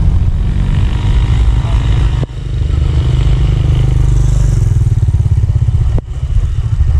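Motorcycle engines running past, a loud low rumble that breaks off sharply for a moment about two seconds in and again near six seconds.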